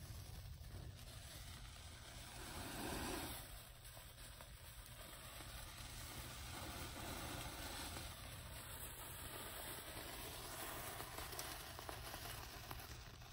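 Faint rustling of a dry cottonwood-bark tinder bundle being handled and blown on to bring a smouldering rub cloth up to flame, with a louder breathy rush about three seconds in.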